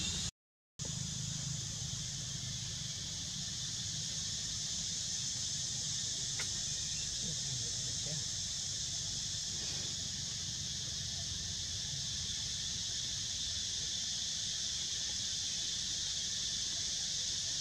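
Steady high-pitched insect chorus of cicadas or crickets over a low rumble. The sound cuts out for a split second about half a second in.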